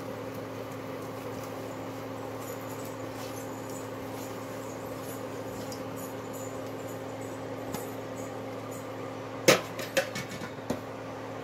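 Torn pieces of khuboos flatbread dropped by hand into a pot of hot water, faint against a steady electrical hum; three sharp knocks near the end.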